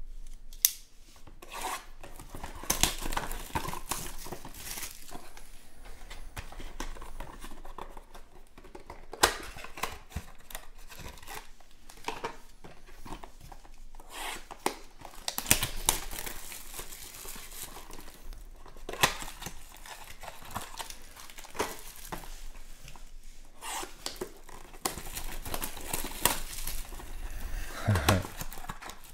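Cellophane shrink wrap crinkling and tearing as trading card boxes are unwrapped and opened, with many sharp clicks and scrapes of cardboard and packs being handled.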